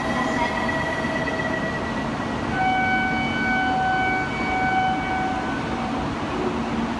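Shinkansen train running at the platform, a steady rushing noise with a thin held tone over it. About two and a half seconds in, a pitched tone sounds three times in quick succession.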